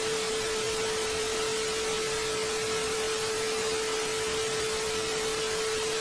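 Steady hiss of static-like white noise with a single steady mid-pitched tone running over it, cutting in and out abruptly.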